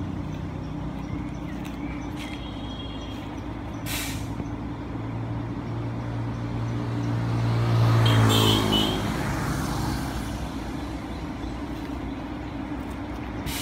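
Hyundai coach's diesel engine running low as the bus creeps forward, then rising in pitch and level to a peak about eight seconds in before dropping back. A short hiss of air brakes comes at the peak, and a sharp click sounds about four seconds in.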